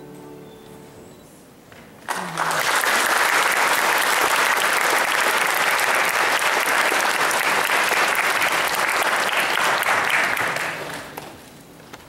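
Audience applauding. It breaks out about two seconds in, just after the last sustained notes of the music die away, holds steady, and fades out near the end.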